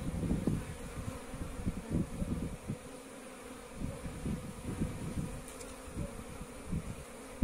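Honeybees buzzing around a hive entrance, a busy colony's hum that swells and fades irregularly as bees fly close by, during early-spring cleansing flights after overwintering.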